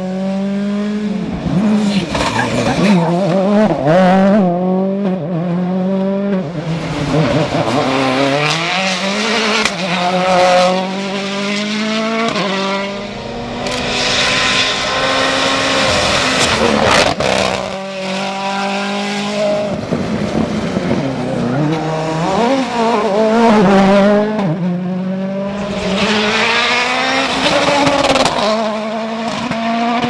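Rally cars, among them a Ford Fiesta R2 and a Mini John Cooper Works WRC, driven flat out past the microphone one after another. Engines rev hard, rising and falling through quick gear changes and lifts, with tyre and loose-surface noise as they slide through the corners.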